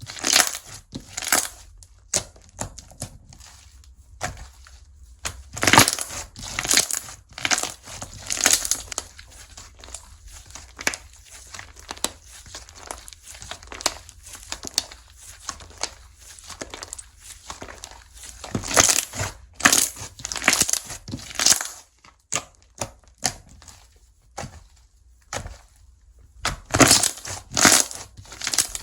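Slime squeezed and stretched by hand, giving crackling, popping clicks in bursts, with quieter scattered clicks between them.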